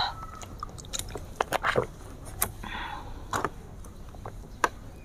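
Close-miked mouth sounds after a drink of water: a scatter of sharp wet clicks and smacks, with a short breathy exhale about two and a half seconds in.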